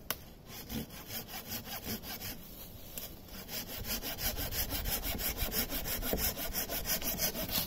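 Hand saw cutting through a green hazel pole in quick, even back-and-forth strokes.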